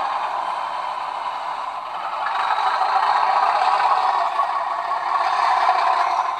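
A pair of model railway diesel locomotives running on track: a steady rattling whir of the motors and wheels. It grows louder about two seconds in as they come nearer.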